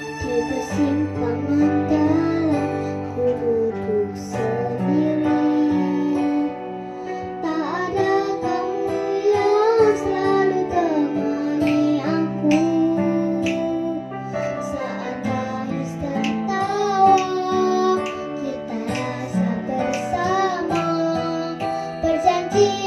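A solo voice singing a slow Indonesian pop song over guitar accompaniment, the sung line starting about a second in.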